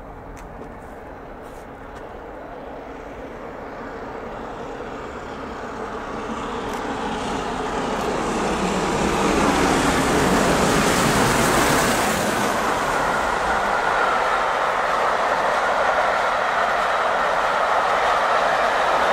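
Peppercorn A1 Pacific steam locomotive Tornado approaching at speed, growing steadily louder, and rushing past about ten seconds in. It is followed by the steady rumble and clickety-clack of its Pullman coaches running past.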